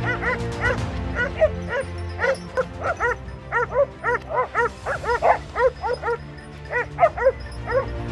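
Hunting dogs barking in quick, repeated, overlapping barks and yelps as they hold a wild boar at bay; the barking is thickest in the middle and thins toward the end. Background music plays underneath.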